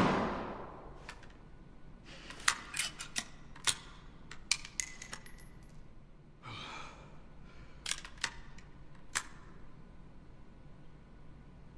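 The report of a Thompson/Center Encore single-shot pistol dies away over the first second. Then come about a dozen sharp metallic clicks and clinks, scattered over several seconds, from the pistol's break-open action being handled.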